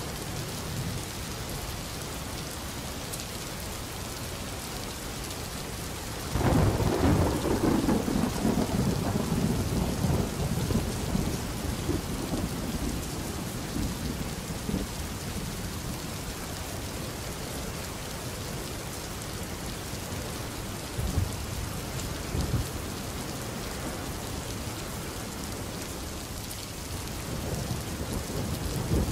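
Steady rain hissing, with a roll of thunder about six seconds in that dies away over several seconds, and another rumble building near the end.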